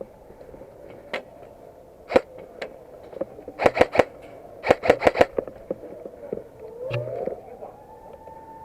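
Airsoft guns firing: a few single shots, then two quick strings of shots about three and a half and five seconds in. Near the end a siren rises in pitch and settles on a steady tone.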